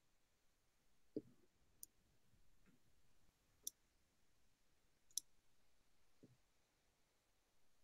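Near silence broken by a few faint clicks and soft low thumps, one every second or two.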